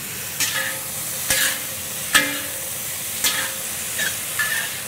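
Vegetables sizzling in a hot wok while a metal wok spatula stir-fries them, scraping and clanking against the pan about six times, the sharpest clank about two seconds in.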